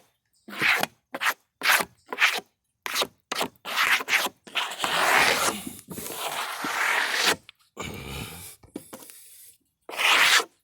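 Freshly sawn black cherry slabs scraping and rubbing against wood as they are shifted. There is a run of short scrapes, then a longer drag of about three seconds just before the middle, and one more short scrape near the end.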